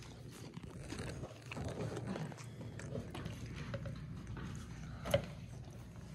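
Quiet kitchen handling sounds: a metal spoon scraping salsa out of a glass jar and spooning it onto a plate of nachos, with small clicks and rustles and one sharp clink about five seconds in.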